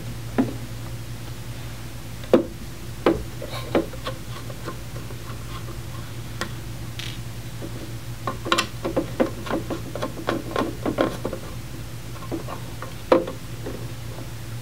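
Light clicks and knocks of a screwdriver and hands working on a small metal instrument enclosure, removing screws and lifting out a sensor. They come singly at first, then in a dense cluster past the middle, over a steady low hum.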